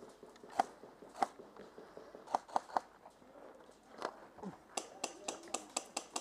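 Airsoft guns firing: single shots about a second apart, then three in quick succession, then a faster string of sharp shots, about seven a second, near the end.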